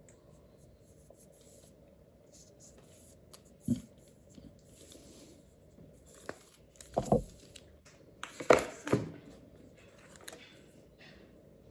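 Packaging being handled during an unboxing: faint rustling with a few louder knocks as the box and its contents are moved, one near the start and a cluster past the middle.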